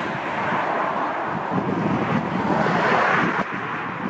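Four Rolls-Royce Trent 500 turbofans of an Airbus A340-600 on landing, a steady rushing jet noise that swells about three seconds in and drops slightly soon after. Wind buffets the microphone throughout.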